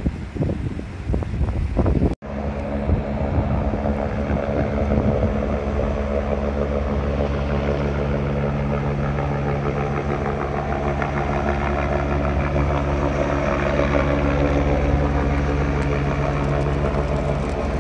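Air ambulance helicopter flying low: a steady rotor and turbine drone with several held tones, growing slightly louder near the end. It follows about two seconds of mixed street noise that cuts out for an instant.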